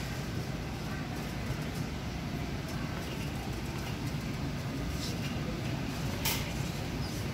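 Shopping trolley wheels rolling over a tiled supermarket floor, a steady rattling rumble, with one sharp click about six seconds in.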